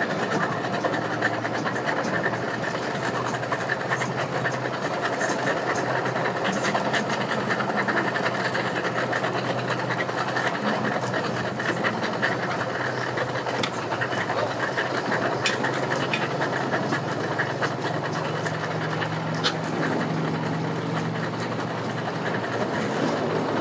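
Boat outboard motor idling with a steady, fast rattling pulse. The engine is smoking and making a lot of noise.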